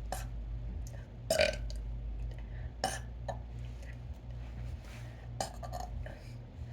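Deliberate, forced burps: several short separate burps a second or two apart, the loudest about a second and a half in.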